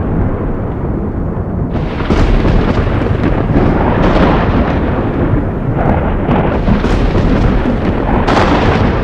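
Thunder in a produced storm soundtrack: a continuous deep rumble, with a sudden crack about two seconds in and more crashes after it, the loudest near the end.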